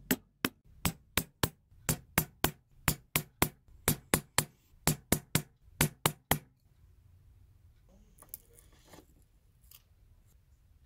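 A small hammer tapping a steel center punch into a silver strip on a steel bench block: about twenty sharp metallic taps, roughly three a second, some in quick pairs, marking star positions through a paper template. The taps stop about six seconds in, followed by faint rustling of the paper template.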